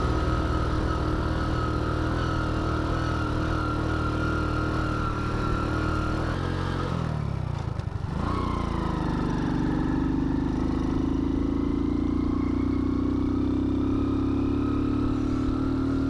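Small motorcycle engine running while riding along; about seven seconds in the engine note drops for a moment, then settles back to a steady pitch.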